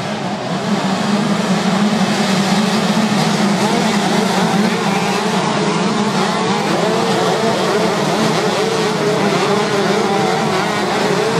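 A pack of 125cc two-stroke motocross bikes racing, several engines at high revs at once, their pitches rising and falling as the riders accelerate and shift. It grows a little louder about half a second in.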